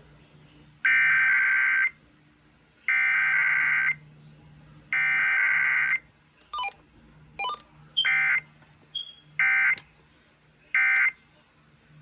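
Emergency Alert System Required Weekly Test data bursts from an FM broadcast, heard through a Uniden BC370CRS scanner radio's speaker. Three roughly one-second SAME header bursts come a second apart. Then come two brief blips and three shorter end-of-message bursts.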